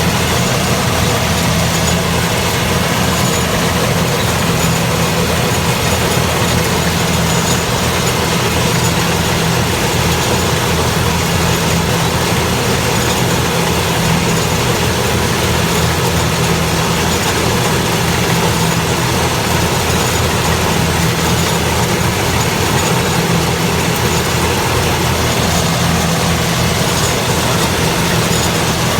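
Rice harvester's engine and machinery running steadily and loud, with no change in speed.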